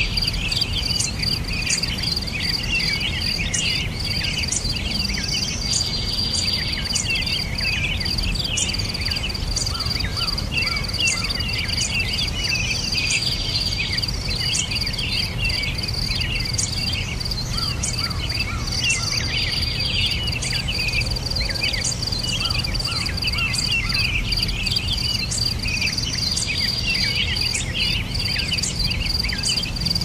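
A steady high-pitched insect trill, with many short bird chirps scattered throughout, over a steady low background rumble.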